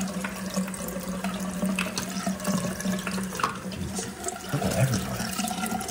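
Bathroom sink tap running, the stream splashing over hands and a small plastic toy monster truck as they are rubbed under it in the basin, with a steady low hum beneath.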